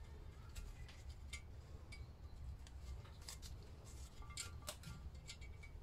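Faint, irregular small metallic clicks and clinks as a valve spring retainer is worked into place by hand on a Lister D cylinder head, the valve held down by a spring compressor, over a low steady hum.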